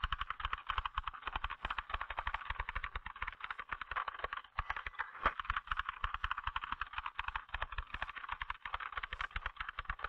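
Typewriter typed at full speed: a fast, unbroken run of key strikes, about ten a second, with no pauses between them.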